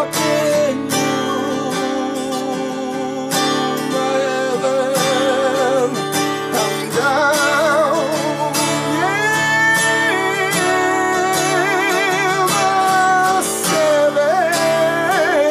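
A man singing long, wavering notes over a strummed steel-string acoustic guitar.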